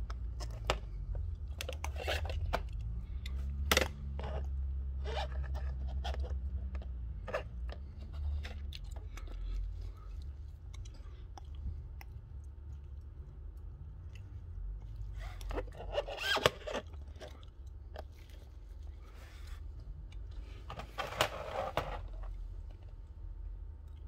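Handling noise from small tools and parts: scattered clicks and taps, with two longer scraping stretches, one about two-thirds of the way in and one near the end, over a steady low hum.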